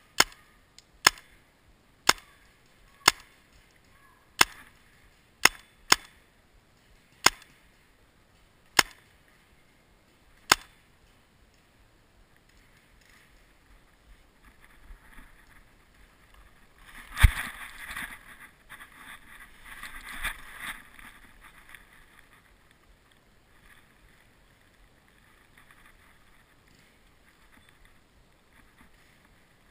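Paintball marker firing sharp single pops, about ten shots at roughly one-second intervals, stopping about ten seconds in. A few seconds later comes a stretch of rustling and shuffling in dry leaves, with one sharp knock in the middle.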